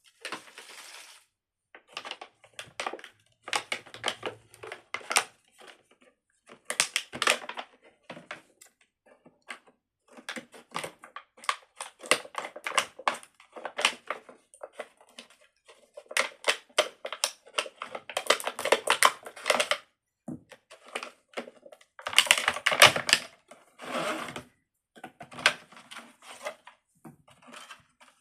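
Fidget toys being handled, making rapid clicking and tapping in bursts of quick clicks separated by short pauses.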